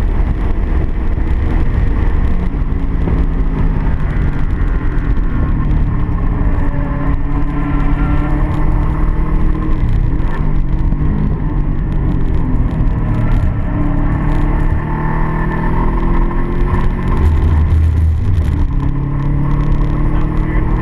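Car engine running at low, slowly changing revs over road and wind rumble, shortly after a failure the driver suspects is a spun bearing.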